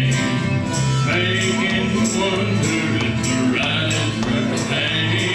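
Live acoustic country music: a harmonica plays the lead in long held chords over strummed acoustic guitars keeping a steady beat.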